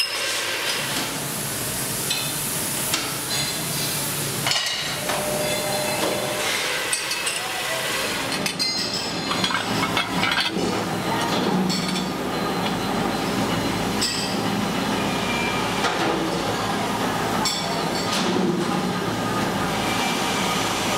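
Metal-workshop noise: steel handlebar tubes knocking and clinking against the bending machine and the steel jig plate in scattered sharp strikes, over a steady noisy background.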